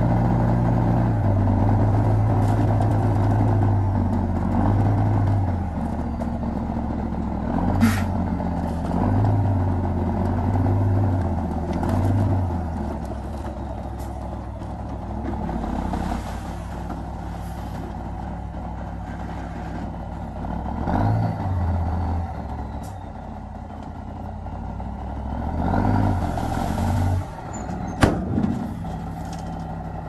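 Diesel engines of a small Komatsu bulldozer and 5-ton dump trucks at work, their engine speed rising and falling in spells. There are sharp knocks about 8 seconds in and again near the end.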